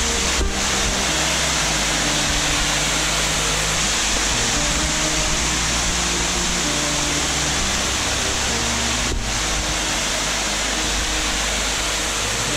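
Background music with held low notes over a steady, loud rushing noise. The noise briefly dips about half a second in and again near nine seconds.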